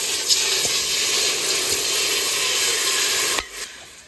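Water poured from a bottle into a hot steel pot on a camping gas stove, hissing and sizzling steadily as it hits the hot metal. The sound stops abruptly near the end.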